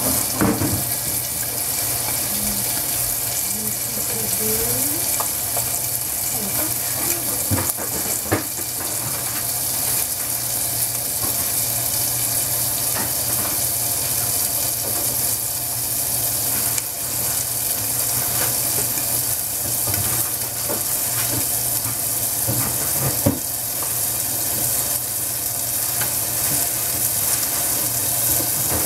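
Chicken frying in a covered non-stick pan: a steady sizzle with a few short clicks.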